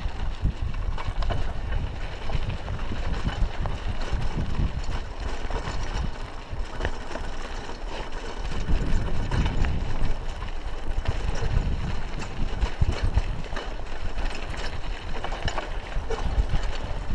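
A Raleigh Ascent mountain bike rolling over a dirt road: rumbling tyre noise mixed with wind rumble on the microphone, and small irregular knocks and rattles from the bike over bumps.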